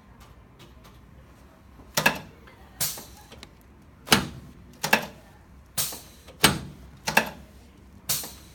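Sections of a chiropractic drop table snapping down under the chiropractor's thrusts: about eight sharp clacks, loosely in pairs, starting about two seconds in.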